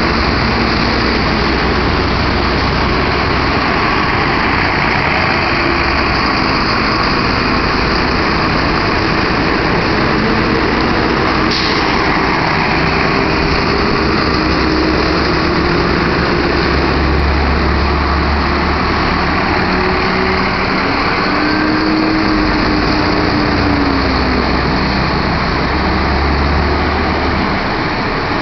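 School buses' diesel engines running as the buses pull out one after another and pass close by, the engine pitch rising and falling as they pull away.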